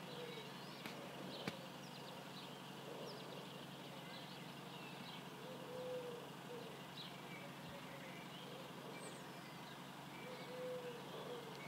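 Small birds chirping, with a pigeon cooing a short low phrase about every five seconds, over the faint steady hiss of light rain and a low hum.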